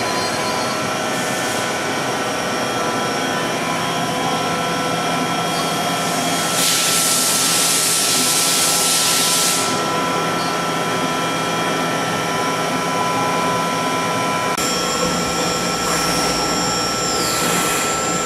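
Mori Seiki NL2500SY CNC lathe powered up, a steady machine hum and whine with several held tones. A loud hiss lasts about three seconds near the middle. About two-thirds through the hum shifts, and a high tone falls away near the end.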